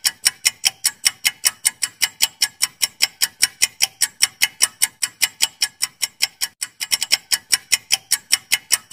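Clock-ticking sound effect for a quiz countdown timer, with quick, even ticks at about four to five a second that mark the seconds left to answer.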